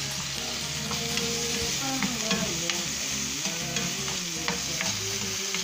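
Onion, garlic and sliced green aromatics sizzling in hot oil in a frying pan, while a metal spatula stirs them, scraping and clicking against the pan many times.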